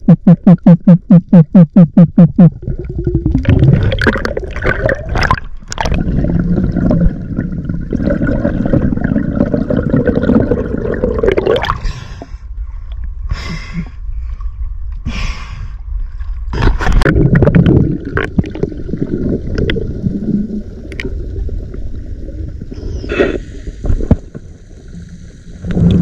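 Water gurgling and sloshing around a camera in the sea, with knocks and scrapes that come and go. In the first couple of seconds a fast run of loud buzzing pulses sounds.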